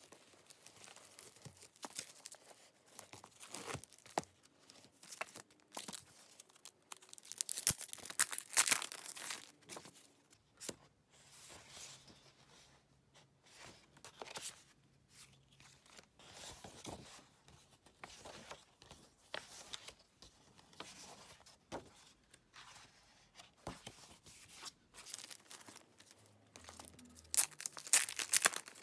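Clear plastic album wrapping crinkling and tearing, mixed with glossy photobook pages rustling as they are handled. It comes in irregular bursts, loudest about eight seconds in and again near the end.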